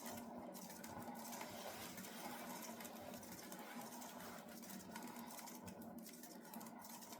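Faint steady background hum with an even hiss, no distinct events: room tone.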